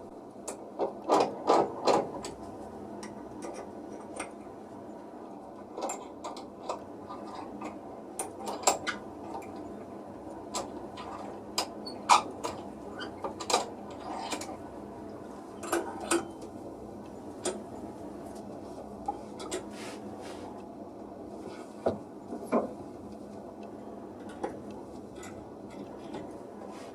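Irregular light clicks and knocks of small hard objects being handled on a workbench, over a steady background hiss.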